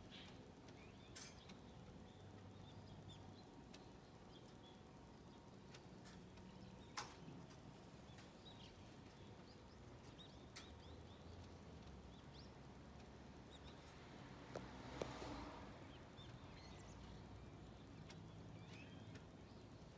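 Faint, scattered calls of azure-winged magpies over quiet outdoor background noise, with a sharp click about a third of the way in and a short cluster of clicks about three quarters through.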